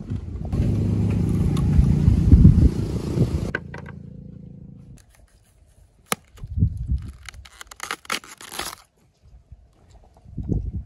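A low engine rumble for the first few seconds, cutting off suddenly about three and a half seconds in. Then a knife cuts through a cabbage head's leaves and stalk with a run of crisp snaps and scrapes.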